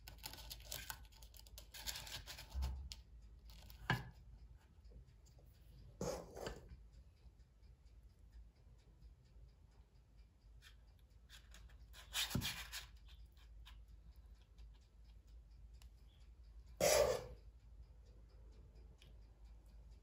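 A spoon scraping and tapping and paper cupcake liners rustling as cake batter is portioned into a metal muffin tin. The sounds come as about six short scrapes and rustles, with the loudest near the end.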